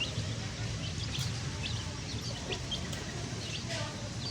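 A group of baby chicks peeping: many short, high chirps, each sliding down in pitch, overlapping several times a second over a steady low rumble.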